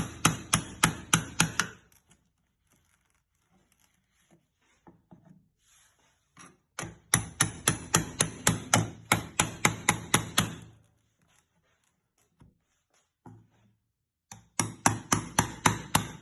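Hammer striking a mini crowbar wedged under an iron angle bar to loosen it from a wooden box: rapid, sharp metal-on-metal blows about four a second. They come in three runs, one at the start, a longer one in the middle and another near the end, with pauses between.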